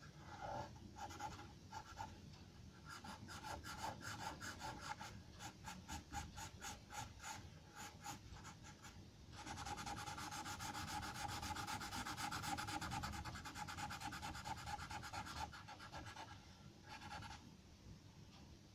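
Charcoal pencil scratching on drawing paper in quick back-and-forth shading strokes. About nine seconds in the strokes run together into a denser, louder stretch lasting around six seconds, then they thin out.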